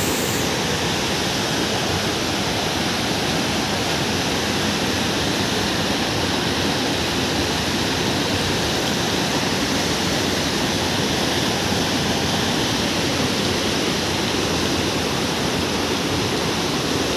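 Rushing stream water: a loud, steady rush with no change in level.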